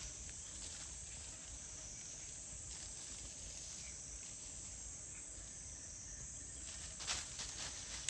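Insects droning steadily in a high-pitched chorus. A few brief rustling or scraping noises come near the end.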